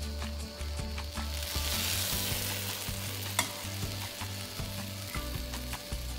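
Hot syrup ladled over freshly baked kadayif in an aluminium tray, hissing and sizzling as it soaks into the hot pastry. The hiss swells for about a second near two seconds in, and there are light clicks of the ladle.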